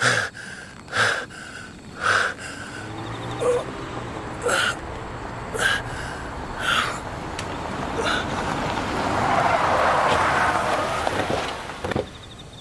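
A man gasping and groaning in pain in short bursts, about one a second. Over the last few seconds a rushing noise swells up.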